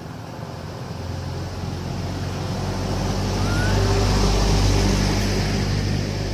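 A motor vehicle passing, its engine hum and road noise swelling to a peak about four seconds in and then fading.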